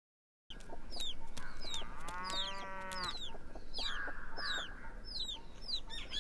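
Farmyard chickens with a rooster crowing once, about two seconds in, for about a second, over repeated short high chirps of small birds. The sound starts about half a second in, after silence.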